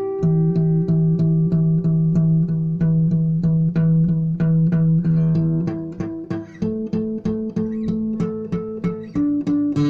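Instrumental music: a steady run of evenly spaced plucked-string notes, about three to four a second, over held low notes that change pitch a few times.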